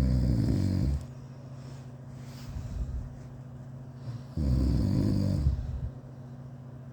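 A sleeping person snoring: two loud, rattling snores about four seconds apart, each lasting about a second.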